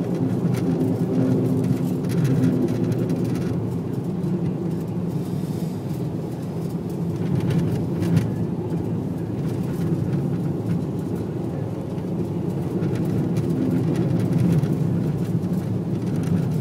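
Car engine and tyre noise on a snow-covered road, heard from inside the cabin at speed: a steady low drone, with a few brief clicks and rattles.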